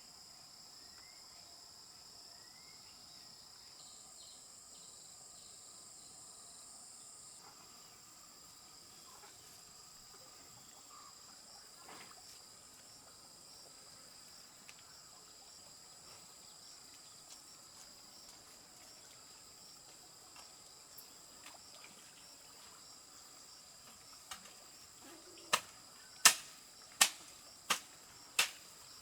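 Insects, likely crickets, shrilling steadily in high tones. Near the end, a series of about five sharp chopping strikes, roughly one every 0.7 s, become the loudest sound.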